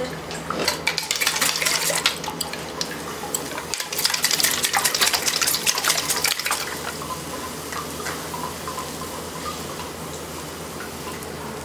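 Steamed soybeans clicking and clattering as a wooden paddle stirs them, busiest in the first half, with a steady hiss of liquid being sprayed over them: the natto bacteria culture being applied.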